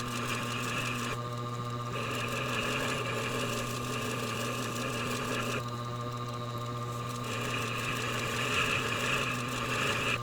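Tormek sharpening machine running with a steady hum as a Stanley 220 block plane blade is honed on its leather honing wheel dressed with polishing compound. The scraping hiss of the blade on the wheel drops away twice as the blade is lifted or shifted.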